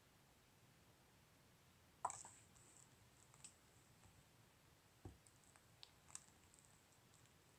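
A few scattered clicks over near silence, the sharpest about two seconds in, with a short low thump about five seconds in; they come from a computer mouse as the pointer moves over a web page's links and a page link is clicked.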